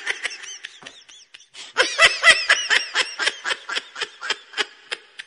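High-pitched laughter: a quick run of short giggles, fainter at first and louder from about two seconds in, about five a second.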